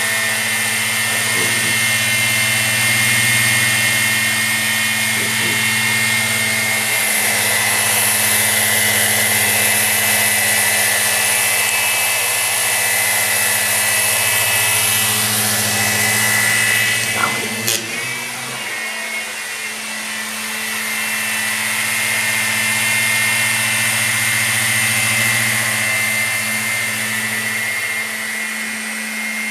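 Walkera HM 5G6-1 micro RC helicopter flying: the steady whine and buzz of its electric motors and spinning rotors. A single sharp click about two-thirds of the way through, after which the low hum eases off for a few seconds before returning.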